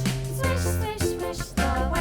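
Upbeat children's music: an instrumental nursery-rhyme backing track with a steady beat and no singing.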